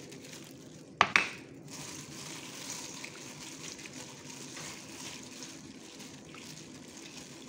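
Two sharp knocks against a stainless steel mixing bowl in quick succession about a second in, followed by faint, steady handling noise as garlic-ginger paste is worked into a soy sauce and vinegar marinade.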